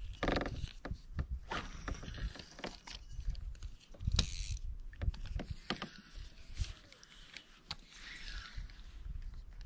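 Spinning reel and rod being worked while jigging from a plastic kayak: scattered small clicks and knocks of the reel and of gear against the hull, with a couple of short rushing noises.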